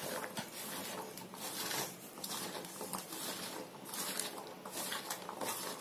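A hand mixing diced raw potato with spice powder in a stainless steel bowl: soft rustling and squishing in irregular strokes as the pieces shift and rub against the steel.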